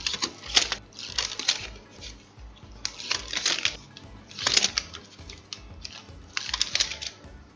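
Protective plastic film being peeled off RAM modules, crackling in about five short rips spread over several seconds.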